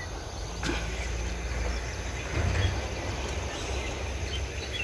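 Hillside outdoor ambience: a low, uneven rumble with faint chirping of insects and birds and a few light clicks.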